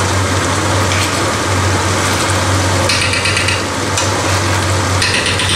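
A stew of meat, potato and vegetables sizzling over high heat in a non-stick frying pan while a metal spoon stirs it, scraping against the pan about three seconds in and again near the end. A steady low hum runs underneath.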